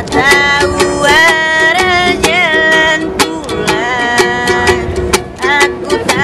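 A young male busker singing long melodic phrases while strumming a ukulele in a steady rhythm. The voice drops out about five seconds in and the strumming carries on.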